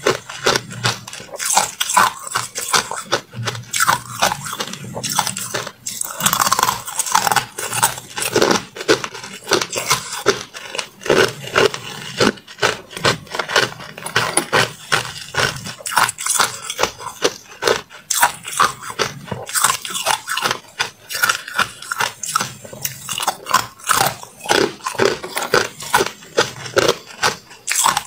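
Chunks of hard clear ice being bitten and chewed, making a dense, irregular run of sharp crunches and cracks.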